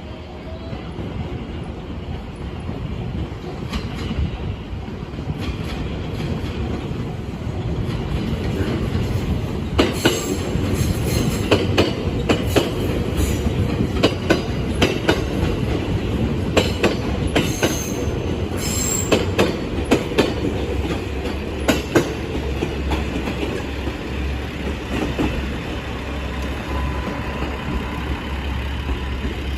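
A JR West train passing close by: steady rumble of the cars, with a quick run of wheel clacks over the rail joints through the middle and a brief high wheel squeal.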